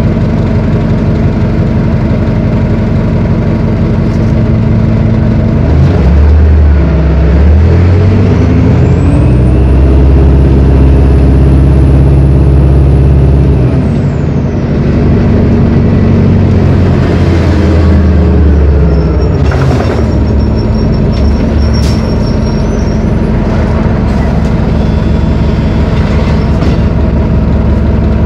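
A Detroit Diesel Series 50 turbocharged inline-four diesel in a New Flyer D40LF transit bus, heard from inside the bus. It idles steadily, then a short air hiss comes as the bus pulls away. The engine climbs in pitch with a high rising turbo whine, drops twice as the transmission shifts up, and settles into a steady cruise.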